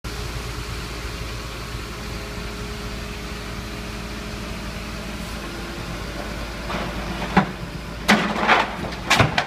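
Garbage truck's hydraulic crane running with a steady low hum as its steel clamshell grab swings down. From about seven seconds in come several loud knocks and clatters as the grab sets down on the pavement and bites into the pile of wooden scrap and cardboard.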